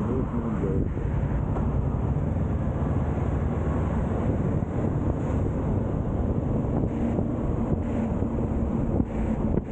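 Kawasaki Z650's parallel-twin engine running at a fairly steady pitch while riding, with wind buffeting the microphone.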